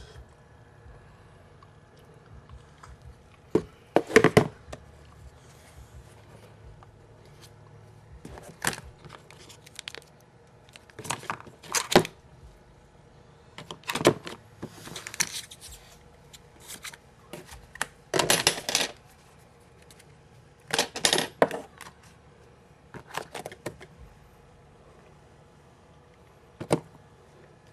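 iPhone 4 retail box and its plastic wrap being handled and opened by hand: short crackles and scrapes in clusters every few seconds.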